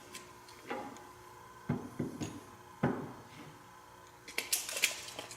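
A few scattered light knocks and clicks as a screw is worked into the end of a wooden handrail by hand, with a small cluster of quick clicks near the end.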